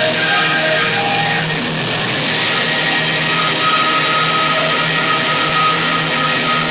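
Wind band playing the closing bars of a march: moving phrases, then from about two seconds in a loud held chord with a bright crash over it, ringing in the church's echoing interior.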